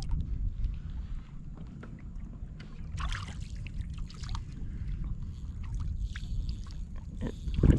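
Water lapping and sloshing against a kayak hull, with a steady wind rumble on the microphone; a louder knock near the end.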